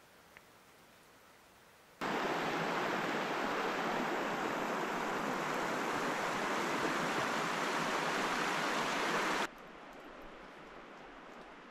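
River water rushing over rocks: a steady, loud rush that starts abruptly about two seconds in and cuts off sharply near the end, leaving a much fainter forest hush.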